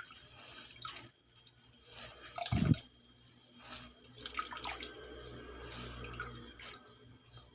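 Water splashing and dripping as boiled lamtoro (petai cina) is rinsed by hand, with a dull thump about two and a half seconds in.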